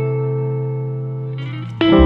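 Background music: a held chord slowly fading, with a new chord struck near the end.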